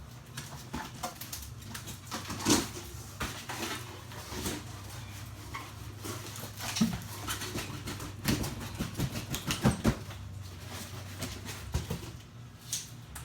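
Cardboard and packaging being handled as a subwoofer is unboxed: irregular rustling, scraping and light knocks, over a steady low hum.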